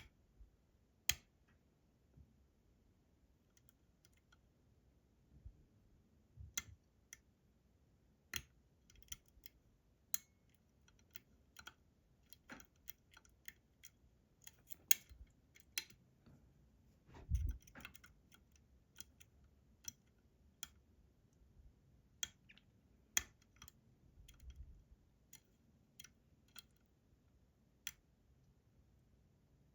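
Irregular small metal clicks and ticks as a lock pick works the pins of a Robur 2391 lock under very light tension, with a soft thump a little past halfway.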